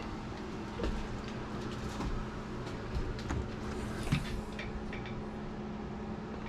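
Scattered light clicks and knocks of small parts being handled, over a steady low hum; the sharpest knock comes about four seconds in.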